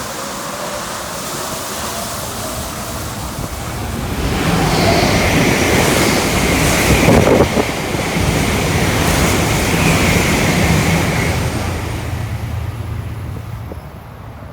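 Saitama New Shuttle 1050 series rubber-tyred guideway train running. A faint rising motor whine comes first, then a louder rushing noise swells from about four seconds in and dies away near the end.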